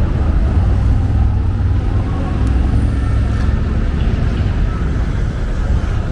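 City street traffic: a steady low rumble of passing vehicles, loudest in the first half.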